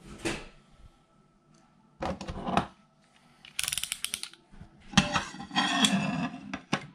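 Hands handling a glass 3D-printer bed and box cutter: scattered knocks and scrapes, a fast run of ratcheting clicks about three and a half seconds in as the box cutter's blade is slid out, then the glass plate scraping and knocking as it is shifted.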